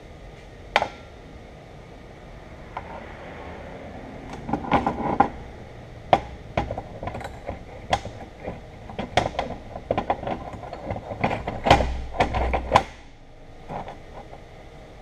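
Sharp metallic clinks and knocks as a steel sleeve is worked into the bore of a milling-machine casting and metal parts are handled on a steel plate table. There is a single click about a second in, then a quick, irregular run of clicks from about four seconds to about thirteen seconds in.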